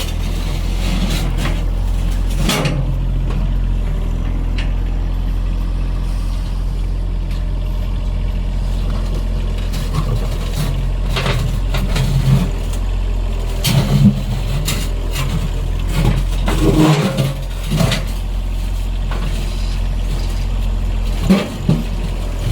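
John Deere compact tractor's engine running steadily as it works the backhoe, with scattered knocks and clunks of rocks being pushed and moved.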